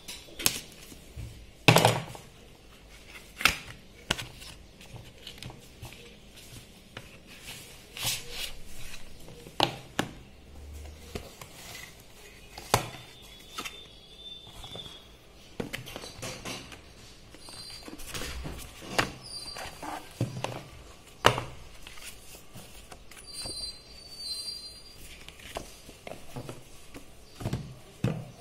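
Handling noise from unpacking a glucose-meter kit: a cardboard box, a plastic carrying case and paper inserts being handled and set down on a table. Irregular knocks and thunks are scattered throughout, the loudest about two seconds in and again about twenty-one seconds in.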